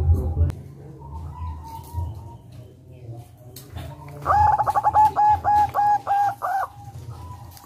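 Zebra dove (perkutut) cooing: about four seconds in, a quick rolling run of about nine short, clear coos, each rising and falling, about four a second, lasting a little over two seconds. A low hum sounds briefly at the start.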